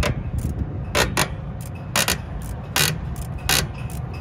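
Hand ratchet wrench clicking in short bursts, roughly once a second, as it works a bolt on a semi truck's suspension, over a steady low rumble.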